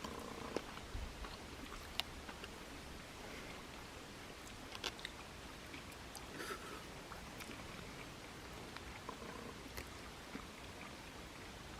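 People eating quietly: soft chewing with scattered short clicks, over a faint steady hiss.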